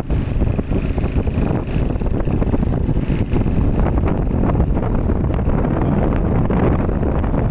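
ATV (quad bike) engine running while riding over beach sand, with wind buffeting the microphone in a steady low rumble.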